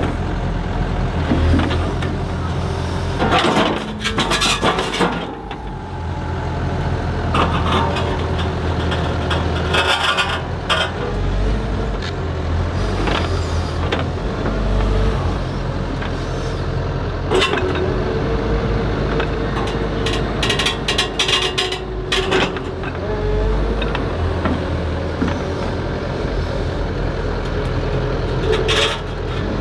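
Komatsu HB215LC hybrid excavator running steadily, with a hydraulic whine that comes and goes as the boom works the TMK MultiGrab M grapple. Clusters of sharp knocks and scrapes of steel grab and boulders, the loudest about three to five seconds in, around twenty to twenty-two seconds and near the end.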